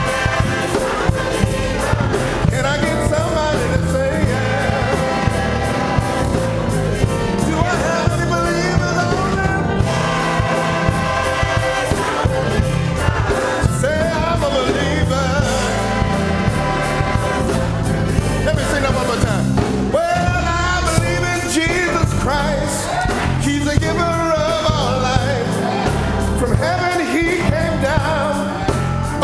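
Gospel choir singing with a live church band: bass and a steady drum beat under several voices singing together.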